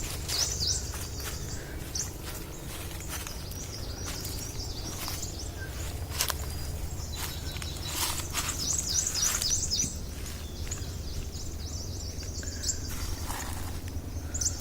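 Small forest birds chirping and singing in quick high series, loudest about half a second in and again from about eight to nine and a half seconds. A steady low rumble and a few sharp clicks lie underneath.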